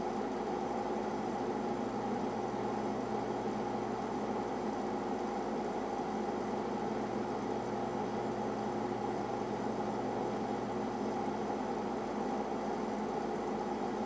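Boiler room machinery running steadily: an even mechanical hum and whir, with a few held tones over a low rush.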